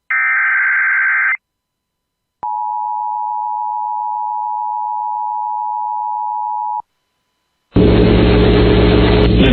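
Emergency Alert System tornado warning tones: a short burst of digital SAME header data tones, then after about a second's gap the steady two-tone EAS attention signal for about four seconds, which cuts off abruptly. About a second later a loud steady buzz with a low hum starts and runs on into the spoken warning.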